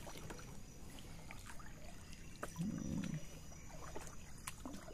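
Light water trickling and dripping, with scattered small knocks and a short low hum about halfway through.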